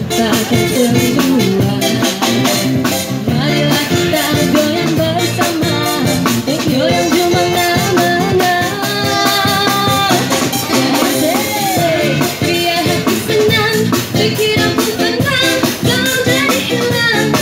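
Live band music: a woman singing lead through a microphone and PA over strummed acoustic guitar and a drum kit.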